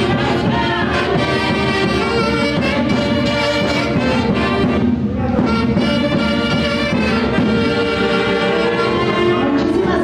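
Music led by brass instruments such as trumpets and trombones, playing continuously with a full, steady sound.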